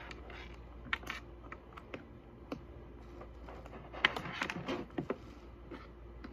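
Irregular small plastic clicks and taps of charging cables and a USB plug being handled and fitted into a power bank, with a quicker run of clicks about four seconds in.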